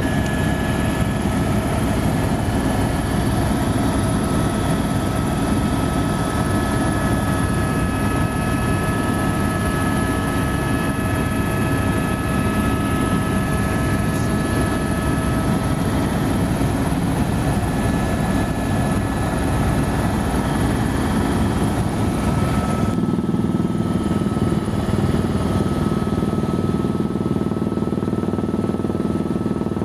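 Helicopter in flight: steady loud turbine whine and rotor drone. About 23 s in, the higher whine fades and a deeper drone takes over.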